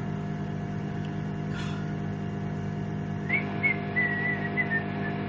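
Microwave oven running with a steady hum. From about three seconds in, a man whistles a short wavering tune over it.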